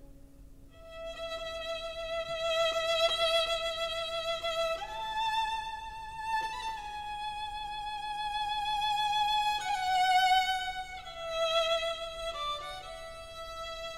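Background music: a slow melody of long held notes with vibrato, one note at a time.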